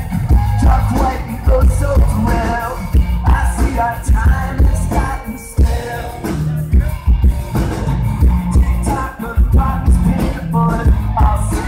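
Alternative rock band playing live: electric guitar, bass guitar and drum kit, loud and continuous with a heavy, pulsing low end.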